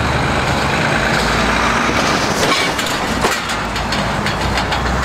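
Heavy truck engine running with a steady low rumble, with a few knocks and rattles about halfway through.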